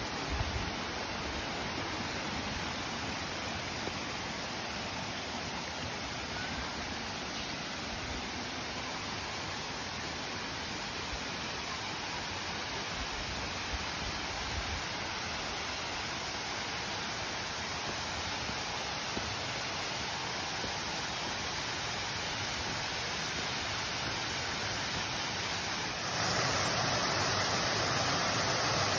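Steady rush of falling water from a waterfall. It jumps louder and brighter about 26 seconds in.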